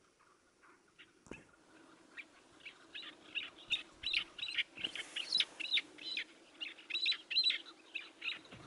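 Chukar partridge calling: a rapid run of short notes, about three or four a second. It starts a couple of seconds in, grows louder and keeps going to near the end.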